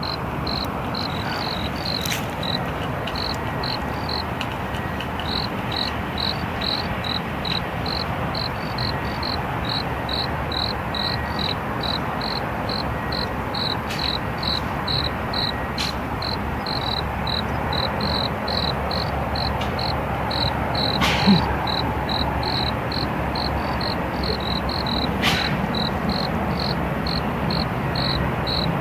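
A cricket chirping in a steady rhythm, short high chirps about twice a second, over a constant low background hiss, with a few faint clicks.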